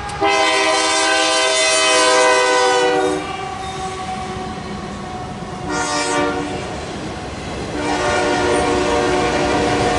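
Freight locomotive's multi-chime air horn blowing a long blast, a short blast about three seconds later, then another long blast near the end, the pattern a train sounds for a grade crossing. Between blasts the train's steady rumble and wheel clatter.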